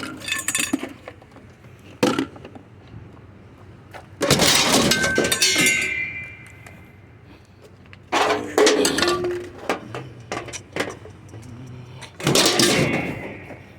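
Scrap items being tossed onto a pile, crashing and clattering four times. The loudest crash, about four seconds in, leaves a ringing that dies away over a couple of seconds.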